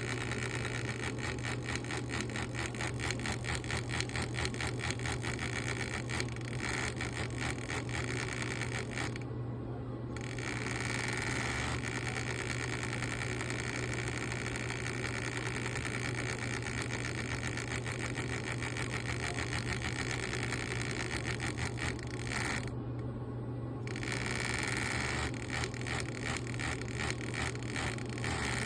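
Arduino-controlled fan spinning at changing speeds, making a rapid rattling click like a card in bicycle spokes. The clicking speeds up and slows down and stops briefly twice, over a steady low motor hum.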